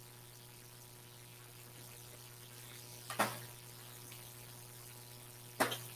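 Steady low electrical hum under a faint hiss, with two short sharp knocks, one about three seconds in and one just before the end.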